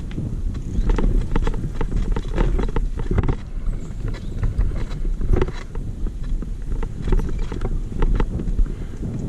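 Mountain bike rattling and clattering over a rough, bumpy trail, with irregular knocks, over a steady low rumble of wind on the microphone.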